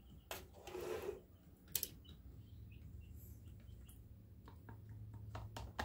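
Light clicks and a short scrape as a plastic measuring cup scoops thick chicken pot pie filling and knocks against a plastic canning funnel set in a glass jar. Faint bird chirps sound in the background.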